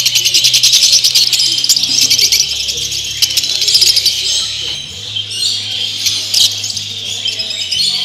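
Many caged show birds chirping and chattering at once in a dense, shrill chorus, busiest in the first few seconds and again near the end. Background music with a bass line plays underneath.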